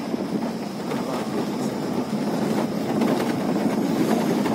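A vehicle driving along a bumpy dirt forest track: a steady rumble of engine and tyres with a continuous rattle.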